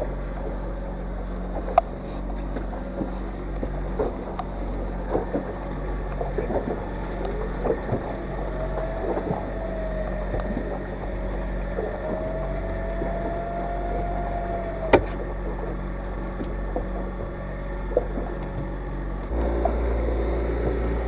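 Boat engine running steadily, with scattered knocks and clicks on board and a faint thin tone in the middle; the engine's low hum grows louder near the end.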